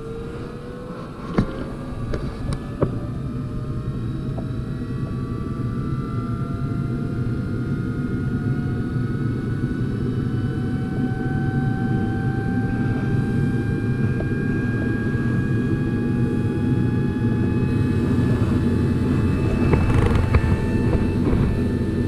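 Carrier Infinity furnace's variable-speed draft inducer motor ramping up, its whine rising steadily in pitch and growing louder over the rush of the running blower. It ramps way higher than usual, trying to pull enough draft to close a pressure switch that never closes: the exhaust flue is blocked.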